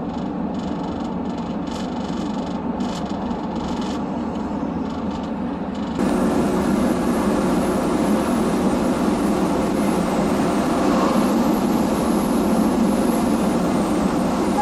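Steady engine and road noise inside a semi-truck cab on the highway. It turns suddenly louder and hissier about six seconds in, then holds steady.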